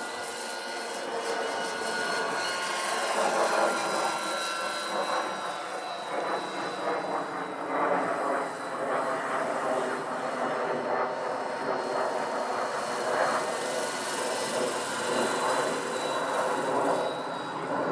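Electric-powered RC scale model helicopter (Lockheed XH-51, 700 size) in flight: steady whine of the electric drive over the rotor noise, swelling and fading as it passes.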